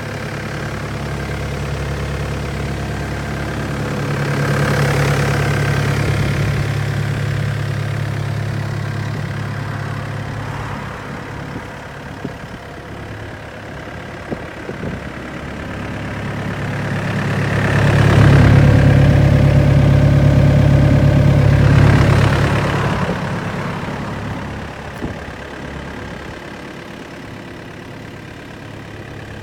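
Hyundai R80CR-9 excavator's diesel engine running, twice working up louder for a few seconds, about four seconds in and again around eighteen seconds, then settling back toward idle. A few short clanks come in between.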